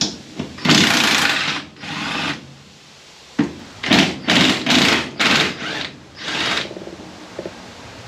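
Cordless impact wrench hammering at the seized nuts holding the brake master cylinder to the firewall: two longer runs, then a pause and about six short bursts.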